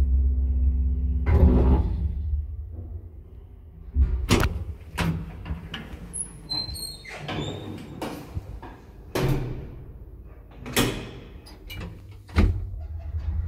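1979 ZREMB two-speed traction elevator car rumbling to a stop, ending in a clunk. It is followed by a series of clicks, knocks and a few short squeaks as the elevator's doors are opened and shut, with a loud bang near the end.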